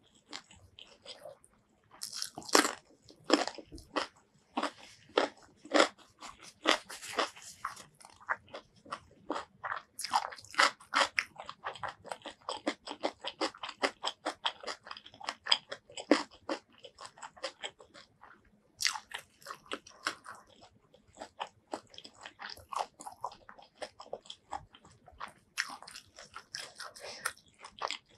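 Close-miked chewing with crisp, crackling crunches and wet mouth sounds, a person eating crunchy food. The bites come in quick irregular runs, quieter for a moment near the start and again about two-thirds of the way through.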